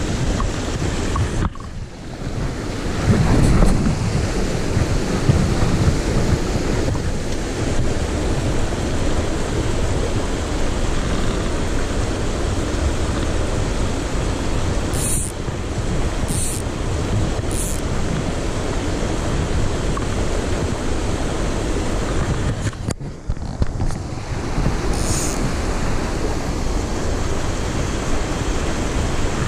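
Mountain stream rushing over rocks and small cascades: a steady wash of water, briefly dropping away twice.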